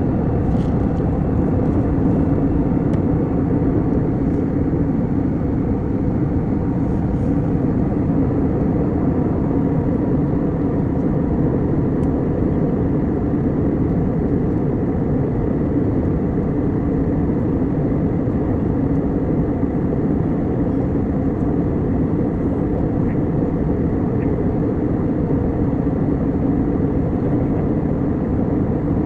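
Steady cabin noise of an airliner in flight: the low drone of the jet engines and rushing airflow, unchanging throughout.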